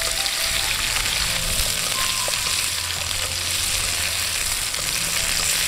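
Tomato wedges and tofu cubes sizzling steadily in annatto oil in a wok, lightly fried until golden.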